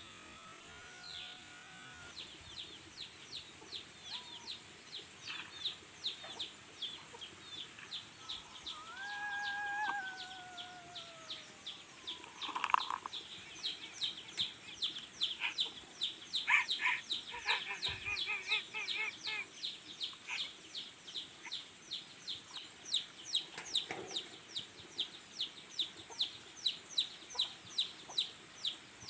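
Birds calling, chicken-like clucks and a few drawn-out calls among them. Short, high chirps repeat about three times a second through the second half.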